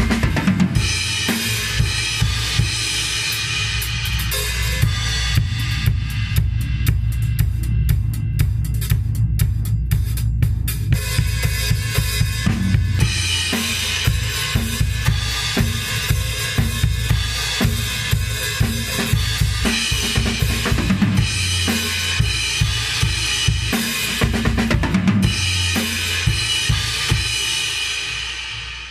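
Acoustic drum kit played as a steady groove of bass drum and snare with cymbals. The cymbals drop back for a few seconds about a quarter of the way in, and the playing fades out near the end.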